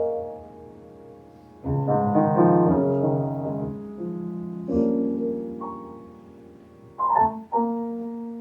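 Piano playing slow chords at uneven intervals, each struck and left to ring and fade.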